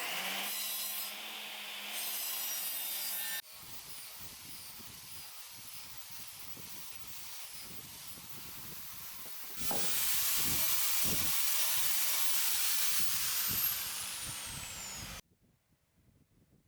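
Woodworking shop tool noise: a steady hiss with rubbing, in three edited segments that switch abruptly, the first with a low hum under it. It cuts off suddenly to near silence near the end.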